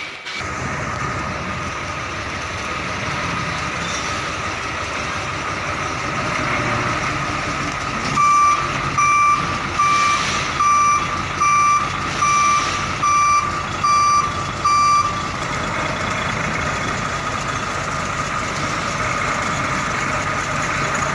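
Container truck's engine running with a steady drone as the rig moves slowly. Midway through, its reversing alarm sounds about ten short, high, steady beeps, evenly spaced a bit faster than one a second, then stops.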